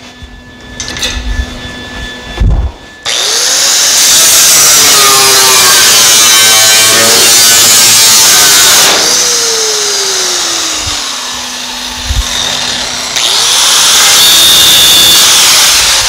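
Angle grinder cutting the sheet steel of a car's rear fender. It starts suddenly about three seconds in, winds down around nine seconds, then runs and cuts again for a few seconds before winding down near the end.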